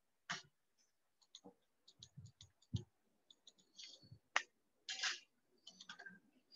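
A computer mouse clicking: a dozen or so faint, irregular clicks, a few with soft low knocks, as on-screen pen and eraser tools are picked.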